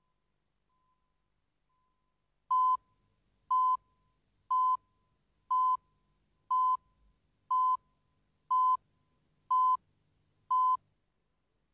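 Video countdown leader beeps: nine short, identical high beeps, one each second, keeping time with the numbered countdown.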